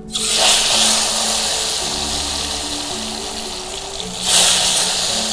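Hot cooking oil in a wok sizzling loudly as slices of fresh tofu are slipped in, with a fresh surge of sizzling about four seconds in as another slice goes in.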